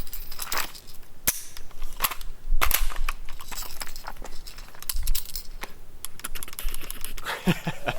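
Rifle gunfire: a string of sharp shots in quick, irregular succession, two or three a second.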